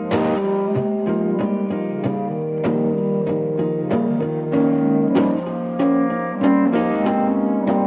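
Ambient instrumental music: piano notes struck several times a second over long held lower tones.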